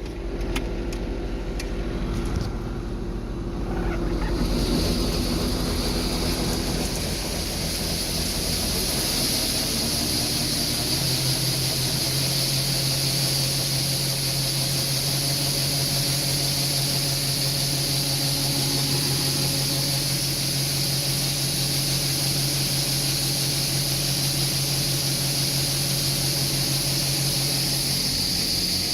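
John Deere 6620 combine running steadily while harvesting soybeans. There are a few clicks in the first couple of seconds, a steady high hiss comes in about four seconds in, and a low steady hum joins about eleven seconds in.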